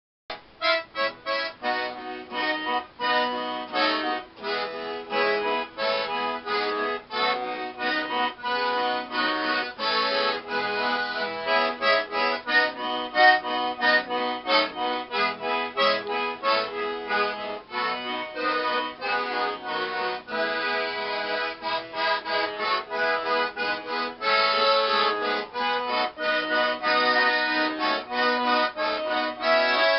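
Accordion and acoustic guitar playing an instrumental hymn tune, the accordion carrying the melody in a steady rhythm.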